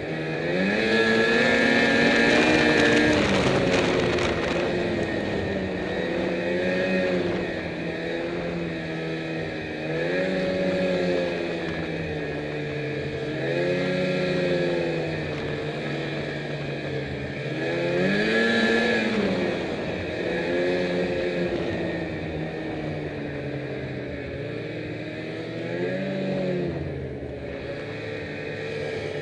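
Snowmobile engine revving up and easing off again and again, in throttle surges every few seconds, the longest and loudest in the first few seconds.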